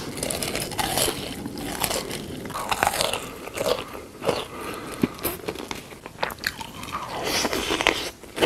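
Close-miked mukbang eating sounds: crunchy bites and chewing, with irregular sharp crackles.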